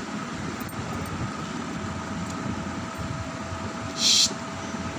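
Steady background hum and hiss with a faint constant tone, the sound of a running room appliance. A short, sharp hiss breaks in about four seconds in.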